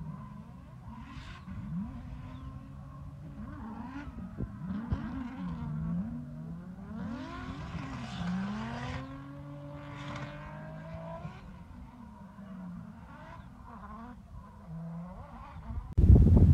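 Drift cars heard from a distance, engines revving up and down over and over through their runs, with bursts of tyre squeal strongest around the middle. Near the end the sound jumps suddenly to a much louder engine close by.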